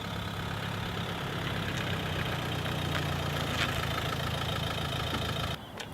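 Car engine idling steadily with a low, even hum; it cuts off suddenly just before the end.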